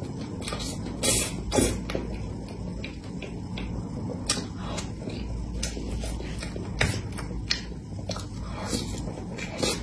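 Close-miked eating sounds: a woman chewing spoonfuls of soft cream cake and smacking her lips, heard as scattered short clicks.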